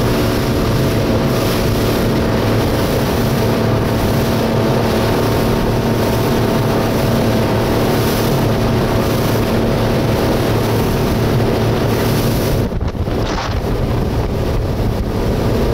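Speedboat engine running steadily under way, with the rush of water from the hull and wake, and wind buffeting the microphone. The wind noise drops briefly about three seconds before the end.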